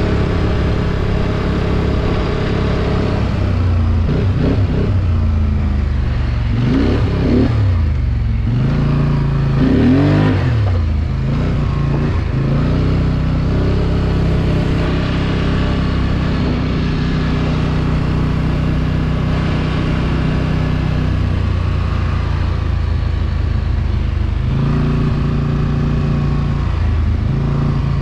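ATV engine running while being ridden, the revs rising and falling several times in the first half, then holding a steady note.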